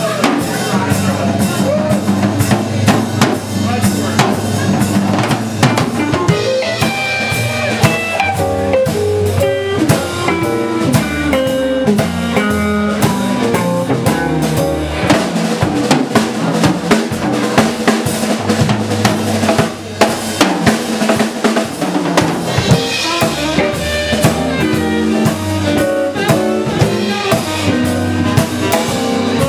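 A live band playing, led by a drum kit with kick drum, snare and rimshots over held bass and chord notes.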